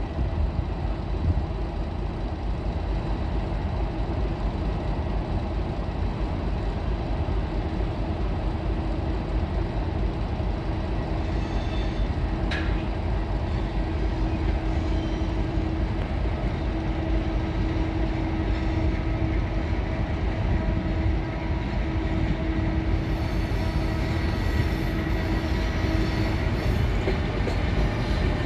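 EP20 electric locomotive moving off slowly with a passenger train, giving a steady low running noise. A single click sounds partway through, and a high whine joins in near the end as the locomotive draws closer.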